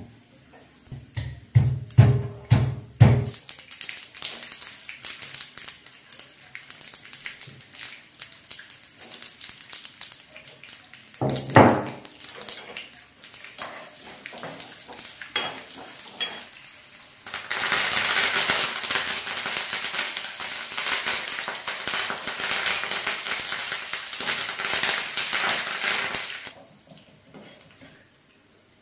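Spices and garlic frying in oil in a frying pan, crackling and clicking as a steel spatula stirs and scrapes. A run of heavy knocks comes about a second in, with one more loud knock midway. Past the middle, a loud steady sizzle sets in and cuts off suddenly.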